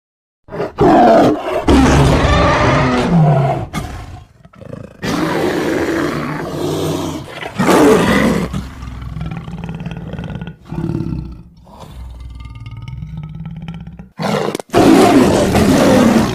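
Tiger roaring sound effects: several loud roars one after another, then a lower, quieter rumbling stretch, and another loud roar near the end.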